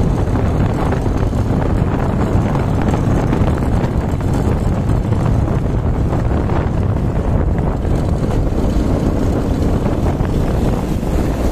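Steady rush of wind on the microphone of a moving vehicle, over a continuous low road rumble, unchanging throughout.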